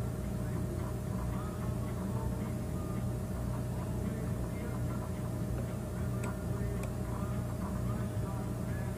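Steady low background hum, with faint irregular sounds above it.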